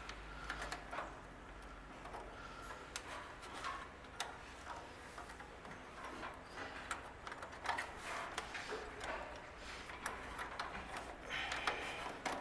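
Irregular small clicks and taps of hands working a replacement voltmeter into a riding mower's dash panel and seating it in its clips.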